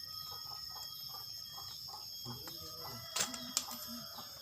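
Crickets chirring steadily, with a rooster crowing faintly and two sharp clicks a little after three seconds in.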